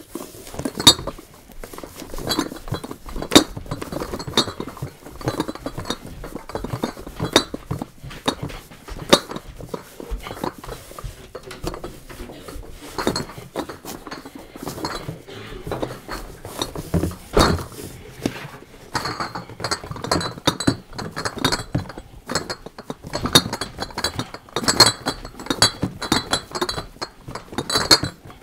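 Glass beer bottles clinking and knocking together inside cardboard boxes as the boxes are moved, in a run of irregular knocks and clinks. The clinking grows busier and more ringing over the last third.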